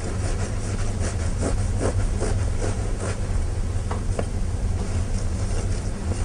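Long knife sawing through a crusty panini roll on a wooden cutting board: repeated short scratching strokes, over a steady low hum.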